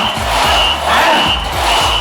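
A Ngo boat crew's whistle giving short, evenly spaced blasts, about three every two seconds, to set the stroke rhythm. The crew shout in time, with low thuds on each beat.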